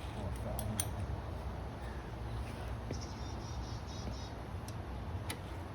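Steady low background hum with a few faint, scattered clicks of hand tools being handled.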